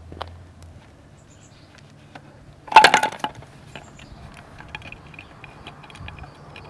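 Metal spreader struts of a camera dolly track clanking against the steel rails as a strut is set down and fitted, a loud clatter of several quick strikes about three seconds in, with light clicks and taps around it.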